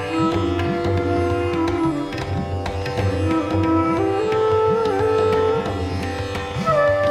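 Instrumental background music: a string melody of long notes that bend in pitch, over a steady drum rhythm.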